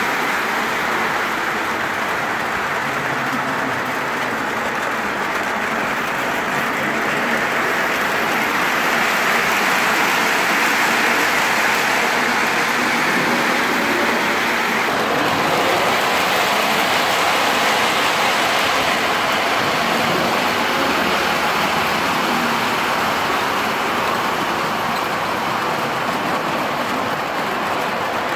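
O-gauge model trains rolling along three-rail track: a steady running rumble and rattle of wheels and motors, changing slightly about halfway through.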